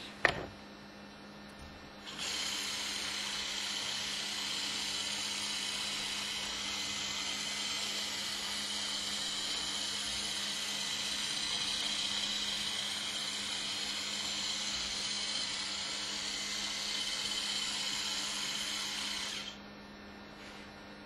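Small electric drive motors of a wheeled hobby robot running, a steady high-pitched whine that starts about two seconds in and stops shortly before the end. A single click comes just at the start.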